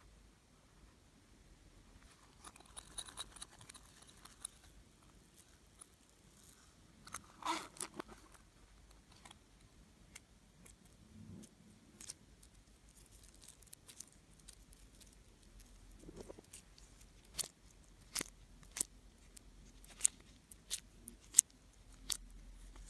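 Slime being squeezed and mixed by hand, giving scattered sticky clicks and small pops, with a louder cluster of crackles about a third of the way in and a run of sharp clicks near the end.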